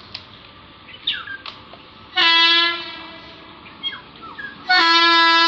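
Horn of an approaching Indian Railways electric locomotive, two blasts: a short one about two seconds in, then a longer one near the end. Birds chirp briefly in the gaps.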